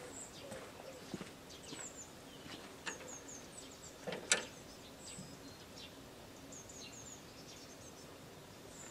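Small birds chirping in short high calls over faint outdoor background noise, with one sharp click a little over four seconds in. The tractor's engine is not yet running.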